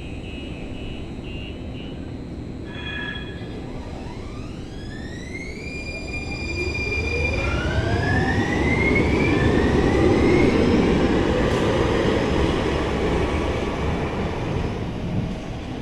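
San Francisco Muni Metro light-rail train pulling away: its traction motors whine, rising in pitch as it accelerates, over a rumble of wheels that grows loudest about ten seconds in and then fades.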